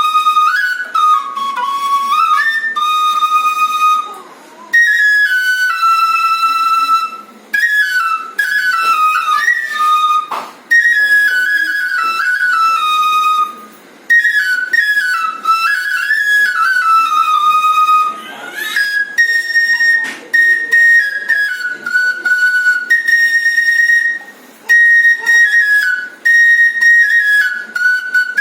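Bansuri (Indian bamboo flute) playing a solo melody in flowing phrases, each separated by a short pause for breath, with no accompaniment.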